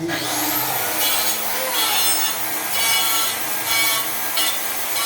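A power screwdriver drives a frame-fixing screw through a wooden door frame into its nylon wall plug. It starts with a rising whine as the motor spins up, then gives a continuous grinding, rubbing noise that surges about once a second as the screw tightens.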